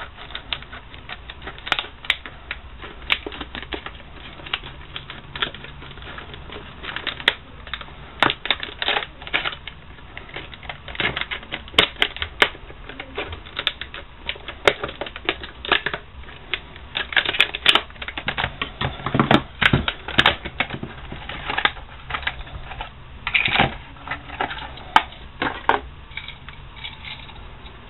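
Clear plastic blister packaging being handled and pried open: an irregular run of crinkles, clicks and snaps, with louder clusters about two-thirds of the way through.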